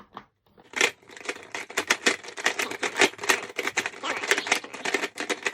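Rapid plastic clicking and clacking of a giant Rubik's cube's layers being turned by hand, starting about a second in.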